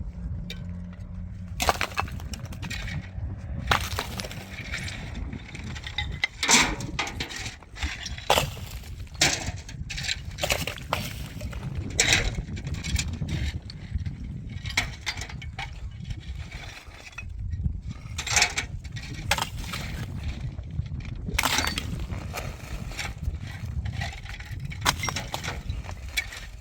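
Irregular knocks and clinks of hard objects striking one another, some louder than others, over a low rumble.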